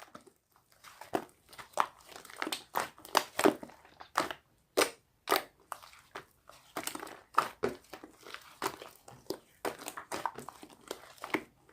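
Hands pressing and stretching slime, making irregular crackling pops and squishes, several a second.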